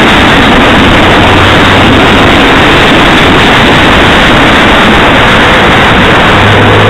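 Ford Focus driving on a wet road, heard through a dashcam inside the car: a loud, steady rush of road and wind noise. The engine's low hum shows through it about a second in and again near the end.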